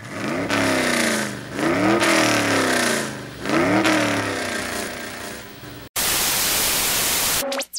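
An engine revved hard three times, its pitch climbing and then falling back each time. It gives way to a burst of TV-static hiss that cuts off, then a quick falling electronic tone.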